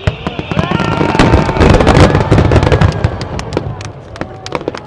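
Aerial fireworks bursting in a dense finale barrage: a deep rolling rumble of booms under rapid sharp crackles. It swells to its loudest about two seconds in, then thins out.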